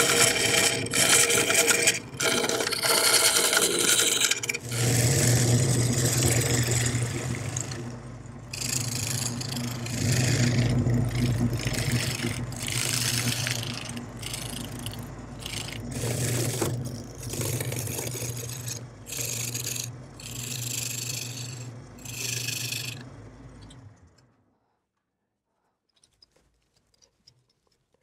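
Wood lathe turning a large almond root ball while a turning tool scrapes and cuts the spinning wood: a continuous cut for the first few seconds, then the lathe's steady hum with short cutting passes about once a second. The sound stops suddenly near the end.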